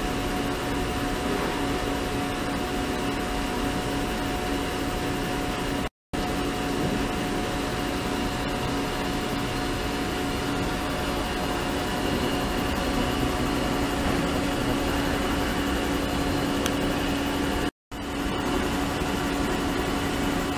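Ultrasonic cleaning tank running: a steady hissing hum from the water bath with a few steady tones on top. It is broken twice by brief gaps of silence.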